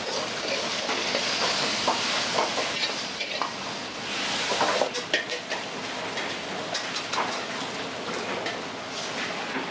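Food stir-frying in a wok: a steady sizzle broken by quick, irregular clanks and scrapes of a metal utensil against the pan. The sizzle swells during the first three seconds and again around the fourth to fifth second.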